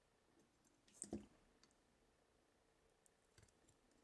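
Near silence, with one brief faint click about a second in and a few fainter ticks near the end.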